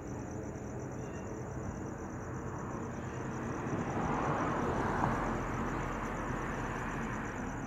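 Crickets chirping in a steady, high pulsing trill. A broad rushing noise swells about halfway through and fades again.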